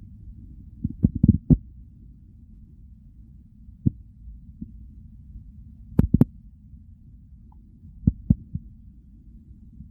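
Human stomach and bowel sounds: a steady low rumble with irregular short gurgles and pops, a quick cluster about a second in and two sharp clicks around six seconds.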